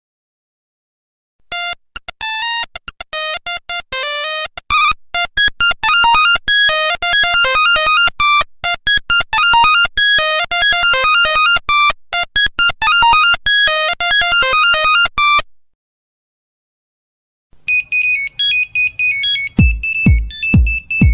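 Nokia 1100 monophonic ringtones, one after another. The first is a fast melody of quick single beeping notes lasting about fourteen seconds. After a two-second gap a second tone starts with a repeating high beeping figure, joined near the end by a regular low thump.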